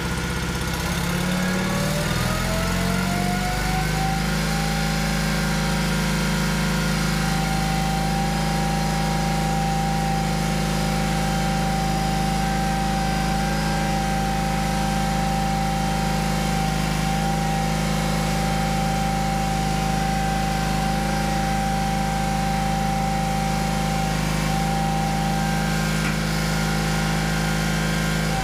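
John Deere 300-series garden tractor engine revving up over the first few seconds, then running steadily at speed, with a steady high whine over it.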